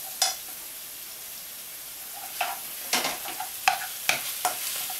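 Scrambled tofu and leeks sizzling in oil in a frying pan, stirred and scraped with a spatula. A steady frying hiss runs throughout, with one scrape just after the start and a run of quick spatula strokes against the pan through the second half.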